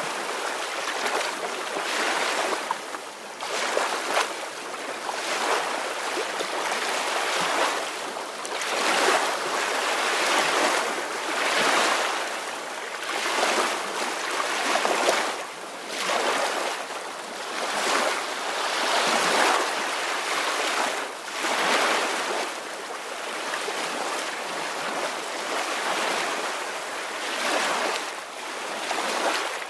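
Soft ocean waves washing in, a hiss of surf that swells and eases every second or two.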